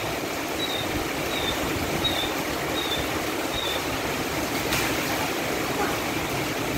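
Heavy rain falling steadily, an even hiss. A short high chirp repeats five times in the first half, about one every 0.7 seconds.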